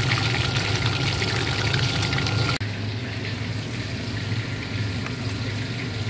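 Whole barramundi (siakap) deep-frying in hot oil in a wok, the oil bubbling and crackling steadily. About two and a half seconds in it cuts off abruptly, leaving a quieter steady low hum.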